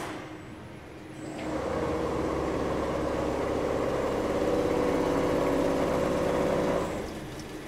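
Mammut Select VMK 250 CNC 601 multi-needle double lock chainstitch quilting machine running. It comes up about a second in with a steady mechanical hum and fast, even beat, and stops near the end.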